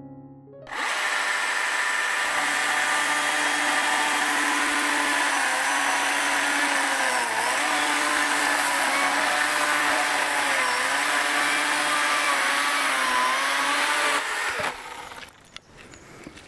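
Battery-powered electric chainsaw running continuously as it cuts through a mossy branch, its whine sagging in pitch now and then as the chain bites into the wood. It stops about two seconds before the end.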